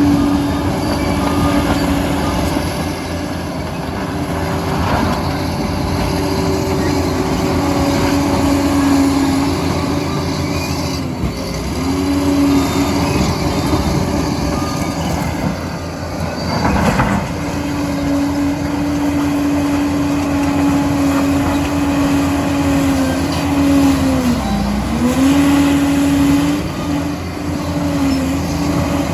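Liebherr PR 746 crawler dozer working, its diesel engine and drive running with a steady hum that dips briefly in pitch a couple of times near the end, as the machine takes load.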